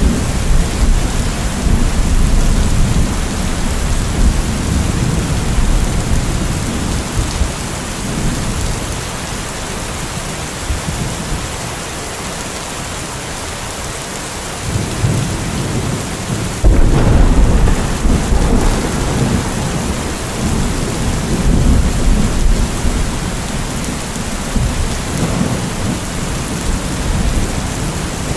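Steady rain with rolling thunder. The low rumble dies down for a few seconds in the middle, then a sharp thunderclap breaks a little past halfway and rumbles on under the rain.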